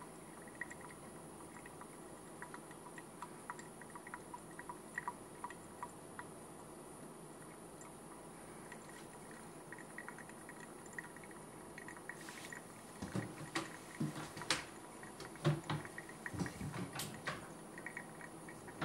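Brewed coffee dripping from a Kalita Wave pour-over dripper into the mug below as the coffee bed drains, faint scattered drips. In the second part, louder irregular clicks and knocks come in.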